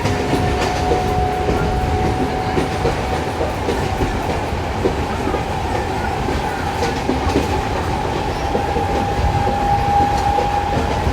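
Indian Railways passenger train running, with a steady rumble and the clicking of wheels over rail joints. A steady whine sounds throughout and slowly rises in pitch.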